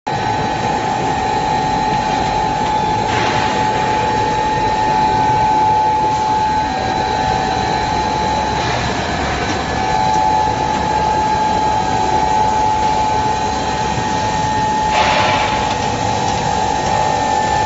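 PVC wall and ceiling panel extrusion line running: steady machine noise with a constant high whine. A short hiss comes through three times, roughly every six seconds.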